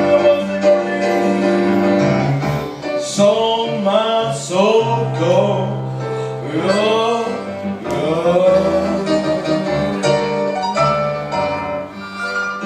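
Live blues band playing, with sustained chords and bass notes under a lead line that bends up and down in pitch.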